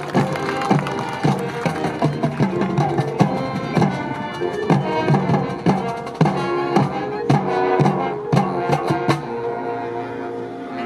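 High school marching band playing its field show: winds holding chords over drum and front-ensemble percussion hits. The hits come thick and sharp until near the end, where the music settles into a softer, sustained passage.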